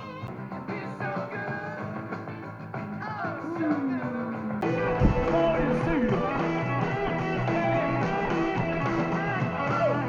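A rock song with guitar playing, growing fuller and louder about four and a half seconds in.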